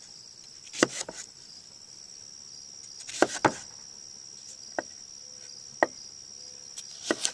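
A knife cutting a fresh beet on a cutting board: about eight sharp knocks of the blade, irregularly spaced, a pair of them near the end. Crickets chirp steadily and high-pitched underneath.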